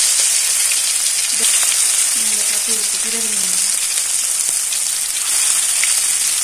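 Marinated pangas fish pieces frying in hot soybean oil in a karahi: a steady sizzle as the pieces are laid into the oil one after another.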